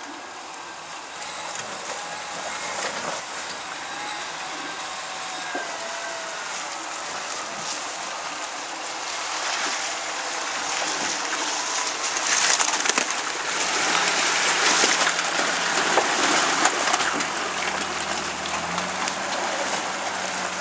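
Volkswagen Taro pickup crawling over a rough forest trail: the engine rises and falls in pitch, with tyres crunching over stones and leaves. It gets louder as the truck passes close by, and splashing and tyre noise are heard as it drives away through a muddy puddle.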